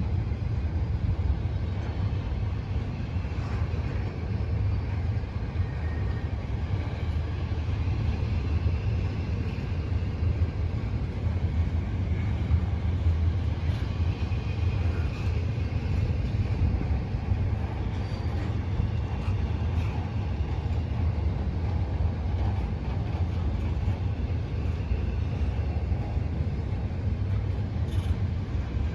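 Freight train cars rolling past, a steady low rumble of steel wheels on the rails with faint scattered clicks.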